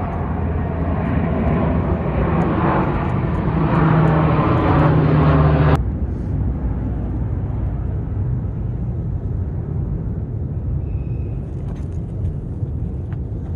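A steady low rumble like an engine running, swelling louder, then cutting off abruptly about six seconds in; a fainter rumble continues after.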